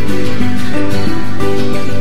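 Instrumental background music with held notes that change every half second or so.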